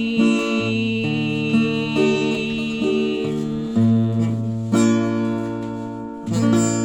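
Instrumental music: the song's closing bars, acoustic guitar chords with sustained notes and no singing.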